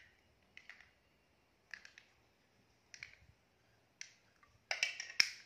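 Light plastic clicks and taps from toy fishing rods and plastic sea-animal toys being handled on a tile floor: single clicks about a second apart, then a louder cluster of clacks near the end.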